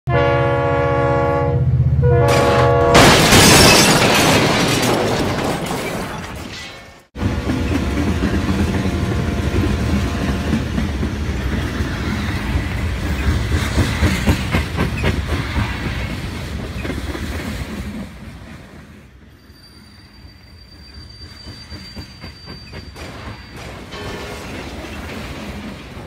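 Dubbed train sound effects: a train horn blows twice, then a loud noisy rush, and after a sudden cut a train runs with a steady rumble and clickety-clack of wheels over rail joints. The running sound drops quieter for the last several seconds, with a thin high whine partway through.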